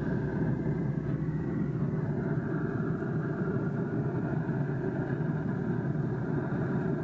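Steady low mechanical hum of a pellet smoker's fan running.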